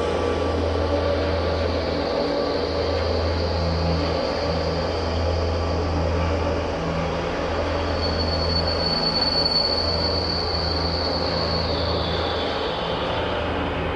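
A car engine running steadily with a low hum. A thin high whine comes in about halfway through and drops in pitch near the end.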